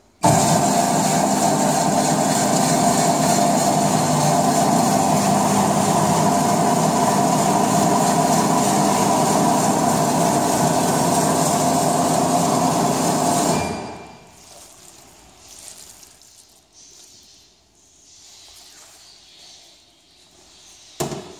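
Şahveli GDM-06 tantuni dicing machine running steadily, its motor-driven blades cutting 3 mm liver fillets into julienne strips. It stops about two-thirds of the way through, leaving faint handling sounds and a short knock near the end.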